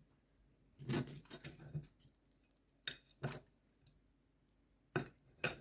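Someone eating a piece of baked chicken: scattered short clicks and smacks of chewing and handling the food, busiest about a second in, with a few sharp clicks later.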